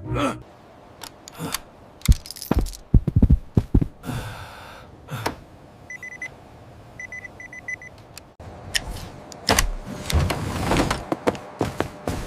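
Sound effects of a stop-motion scene: a string of sharp clicks, knocks and metallic jangles, a brief swish, and short high electronic beeps, one and then three.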